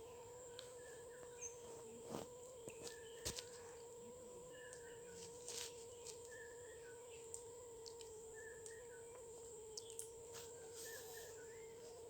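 Parrots giving faint, short chirps scattered throughout, over a steady hum, with a few sharp clicks.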